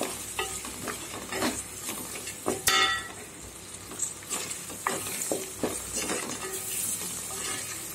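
A spatula stirring and scraping a shallot, tomato and dried-chilli masala that is sautéing and sizzling in oil in an aluminium pot, with scattered scrapes and taps of the spatula against the pot. One louder, ringing knock comes a little over two and a half seconds in.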